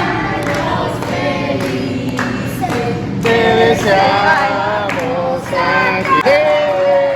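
Music with voices singing together, choir-like.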